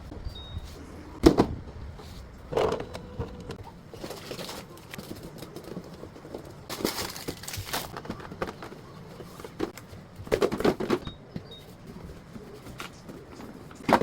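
Food containers and trays being handled during fridge organizing: scattered knocks and clatters, the loudest about a second in, with a short rustle about seven seconds in and a cluster of clatter near the end.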